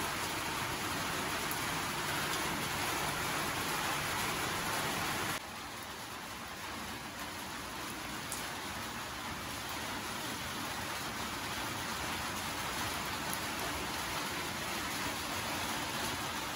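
Steady rain falling, an even hiss that drops suddenly to a slightly lower level about five seconds in.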